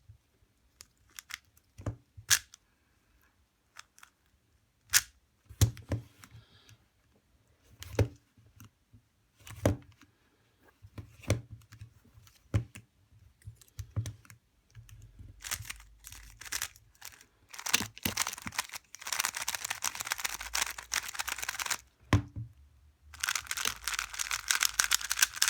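Magnetic 3x3 speedcube being turned. Single sharp turn clicks come a second or two apart at first. Later they quicken into two spells of fast, continuous turning.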